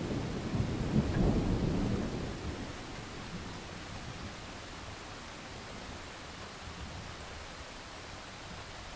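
Thunder rumbling low, loudest about a second in and dying away over the next couple of seconds, over a steady hiss of rain.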